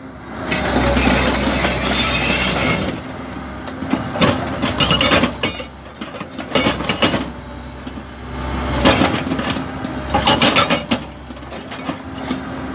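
SHS S50 hydraulic breaker on an excavator hammering rock: rapid metallic blows in bursts, a long run in the first few seconds, then shorter clusters with brief pauses while the chisel is repositioned. The excavator's engine runs steadily underneath.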